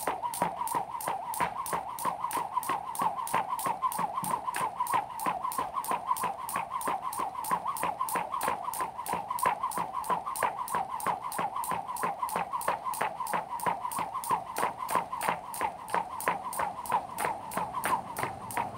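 Jump rope turning steadily, slapping the ground about three times a second, with a whirring whine from the spinning rope that wavers with each turn.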